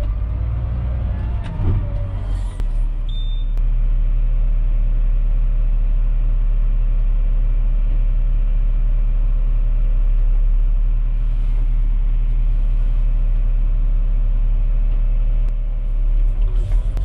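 Volvo wheel loader's diesel engine running steadily, heard from inside the cab.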